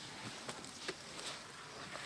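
Faint scuffing and scraping of dry sand and dust as an elephant calf rolls and kicks on the ground, a few sharper scrapes among a steady soft hiss.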